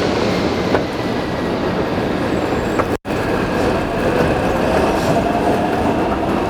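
Steady running noise of a moving vehicle with faint high steady tones, broken by a split-second dropout about three seconds in.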